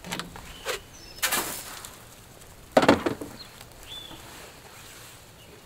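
A few knocks and rattles from handling a wooden, wire-mesh chicken coop, the loudest about three seconds in, with a couple of short high chirps.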